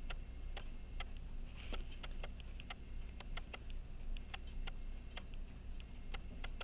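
Open pocket watch ticking: the escapement and balance running, giving a fast, even train of sharp little ticks several times a second.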